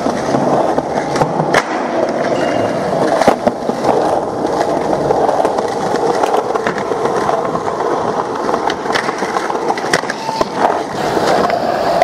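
Skateboard wheels rolling over a paved street: a steady rolling noise with a few sharp clacks along the way.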